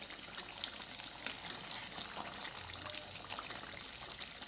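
Chicken karahi gravy bubbling and sizzling in the pan, a steady hiss of liquid sprinkled with many small pops, as the curry simmers at its finishing stage.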